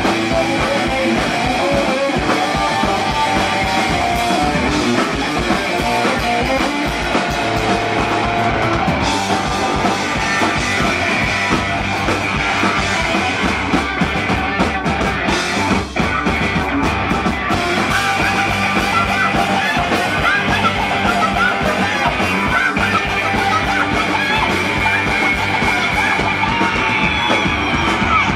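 Punk rock band playing live and loud, electric guitar to the fore over a steady driving beat, with a split-second stop about halfway through.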